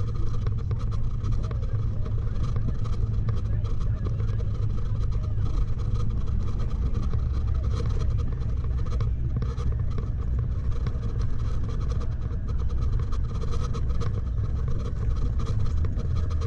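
Pickup truck driving on a snowy, slushy road, heard from inside the cab: a steady low engine and tyre drone with many small clicks and ticks throughout.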